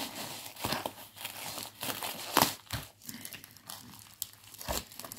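Plastic packaging crinkling and rustling as it is handled, in irregular crackles with a few sharper snaps.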